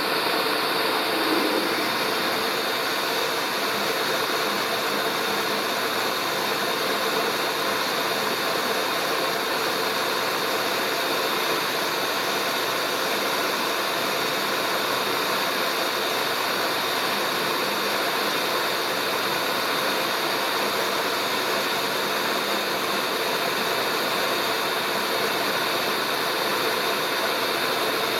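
Milling machine running steadily with a drill in the spindle, drilling through a weld-built aluminium caliper lug under cutting oil. It starts abruptly at the beginning and holds an even, unchanging whine and hiss.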